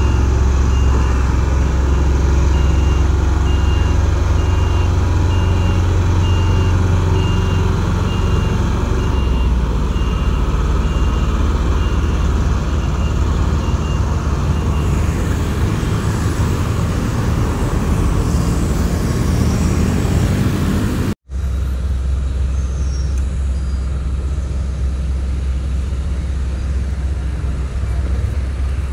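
Heavy-haul truck's diesel engine running with a steady low rumble while a warning beeper sounds a regular series of short high beeps, which stop about halfway through. The sound cuts out for an instant about two-thirds of the way in, and a slightly quieter vehicle rumble follows.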